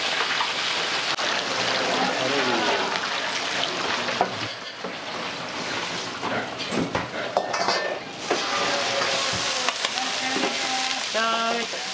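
Food sizzling in a hot wok as it is stir-fried, with the scrape and sharp clinks of a metal ladle against the pan. The sizzle is loudest in the first few seconds, eases, then comes up again.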